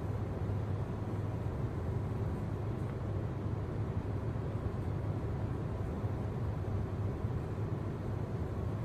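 Steady low background hum with an even hiss over it, unchanging throughout, with no distinct events.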